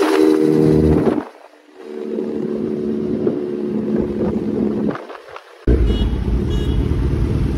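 Kawasaki Z900 inline-four with an SC-Project full exhaust, running under way with a steady exhaust note. The note drops away briefly about a second and a half in and again near five seconds, then comes back suddenly louder and deeper near six seconds.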